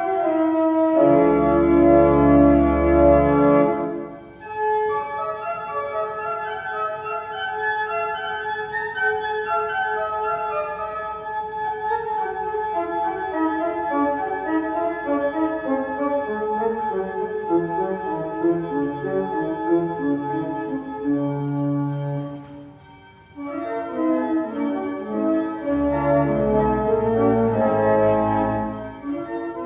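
Church organ playing: sustained chords over a deep bass note, with a melody stepping downward in the middle, breaking off briefly twice between phrases.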